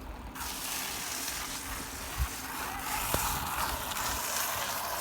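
Steady hissing rush of a mountain bike being ridden over rough dirt, starting just after the beginning, with two short knocks from the bike jolting.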